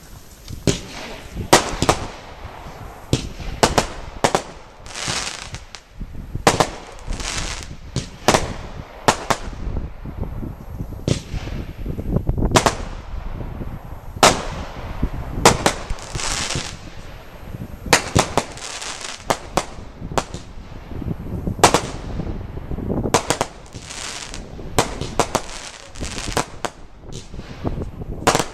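Loco Loco, a PyroShopper 20 mm, 48-shot firework battery, firing shot after shot: an irregular run of sharp launch thumps and bangs, about one to two a second, with hissing between the shots.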